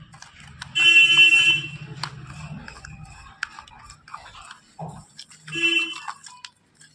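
A loud honking tone, like a horn, sounds twice: once for about a second near the start, then more briefly about five and a half seconds in. Between them come faint clicks and scraping of a piece of slate pencil stirring wet slate powder in a small plastic toy pot.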